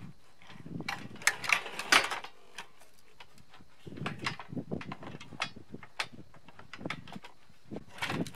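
Metal parts and hand tools being handled while a portable generator is put back together: irregular clicks, knocks and scrapes, the loudest about one to two seconds in.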